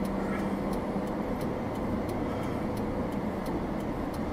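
Steady road and engine noise of a car driving at speed, heard from inside the cabin through a dashcam microphone.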